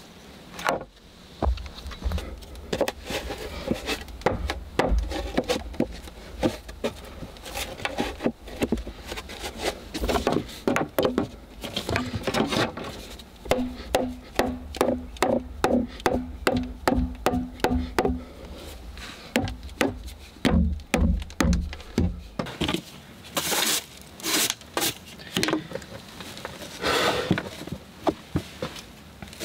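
Hammer driving nails into wooden floorboards: a steady run of ringing blows, about two a second, through the middle, among scattered knocks and thuds of boards being laid.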